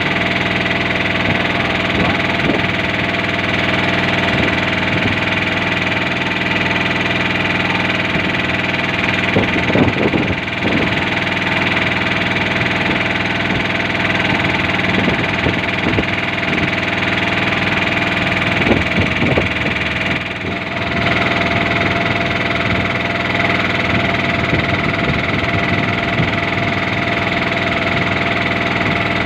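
Small boat's engine running steadily at a constant speed, with a few short louder noisy patches and a brief dip in level about twenty seconds in.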